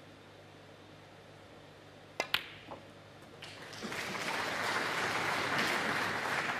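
Two sharp clicks of a snooker shot about two seconds in: the cue striking the cue ball and the cue ball hitting the red. Audience applause then builds and carries on for the rest of the shot.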